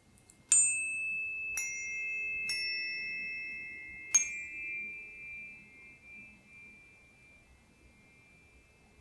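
A set of metal therapeutic tuning forks struck four times, each strike a sharp click followed by a clear ringing tone, several pitches overlapping and slowly fading out. The last strike, about four seconds in, is the loudest.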